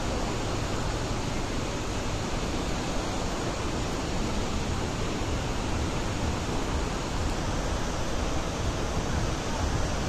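Steady, unbroken rush of Bahuti waterfall plunging down the cliff, its spray filling the air.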